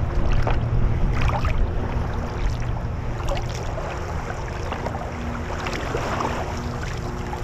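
Wooden Greenland paddle strokes splashing water beside a sea kayak, a few irregular splashes over a steady rush of wind on the microphone, with a faint steady motor hum underneath.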